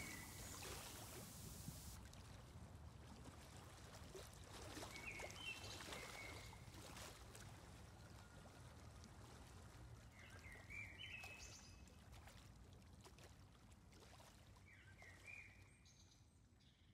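Near silence: faint steady background hum and hiss, with a few faint, brief high chirps about five, ten and fifteen seconds in.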